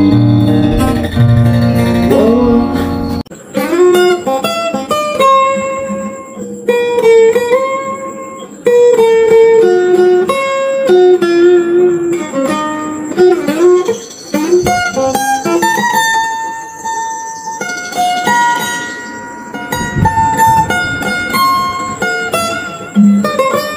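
Yamaha Jumbo 310 Custom steel-string acoustic guitar strummed in full chords, then from about three seconds in played as a picked single-note melody with ringing, sustained notes.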